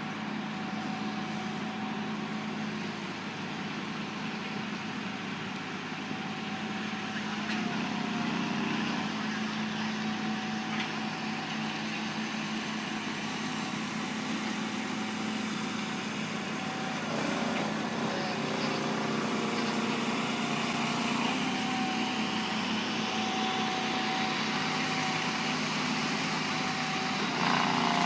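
Engine of a heavy vehicle running steadily, its pitch shifting slightly now and then, with a louder swell near the end.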